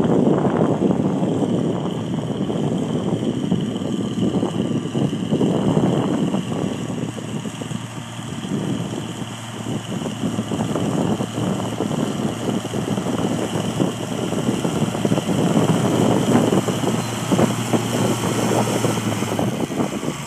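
1964 Farmall 806's six-cylinder diesel engine running under load as it pulls a plow, getting closer and louder in the last few seconds.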